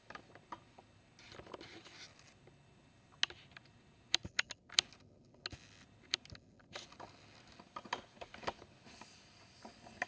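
Scattered light clicks and taps of handling, a few sharp ones bunched together just before the middle, over a faint room hiss.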